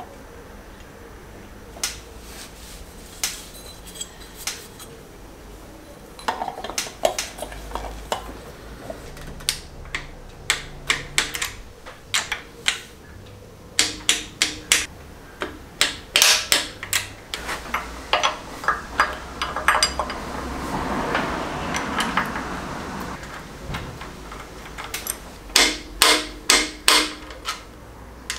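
Clinks, taps and clicks of metal parts and hand tools as a thermostat and aluminium thermostat housing are fitted and bolted onto a BMW M52B28 engine, with scattered single knocks and several runs of quick clicks.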